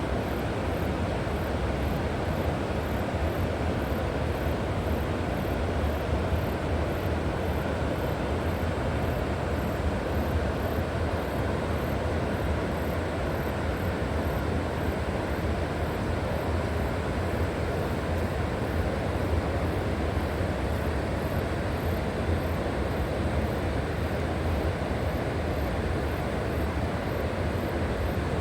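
River water rushing: a steady, even noise with a deep rumble underneath.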